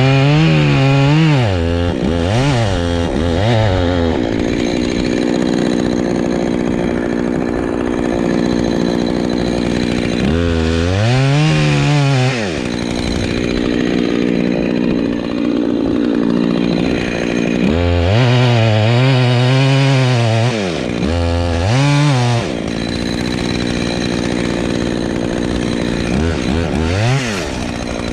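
Two-stroke chainsaw running, revved up and back down in short bursts several times with steady running in between.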